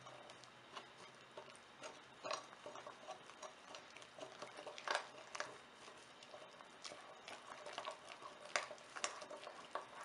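Metal spoon stirring a thick, wet marinade of egg, corn flour and spice powders in a glass mixing bowl: faint, irregular clicks and scrapes of the spoon against the glass.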